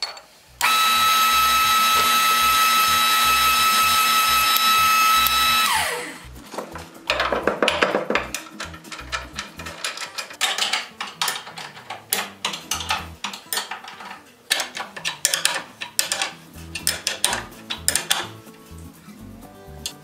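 A shop machine's motor runs with a steady, loud whine for about five seconds, then winds down. Irregular metal knocks and taps follow as an iron rocker brace is bent and hammered into shape.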